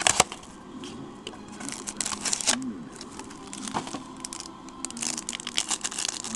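A foil trading-card pack being torn open and crinkled by hand, with irregular crackling rustles throughout. There are a few sharp clicks at the very start.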